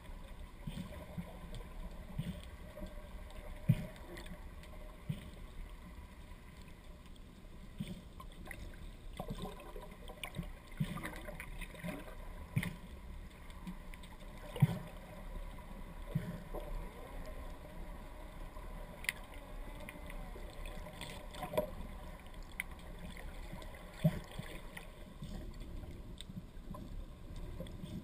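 Underwater noise picked up by a GoPro in its waterproof housing: a muffled, steady low rush of water with gurgles and a scattered handful of sharp knocks.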